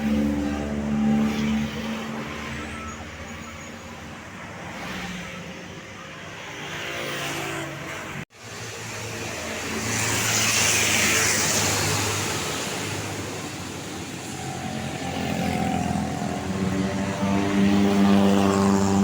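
Large tour buses passing on a road: engine hum with the rush of tyres and air, swelling as a bus goes by about ten seconds in and again near the end.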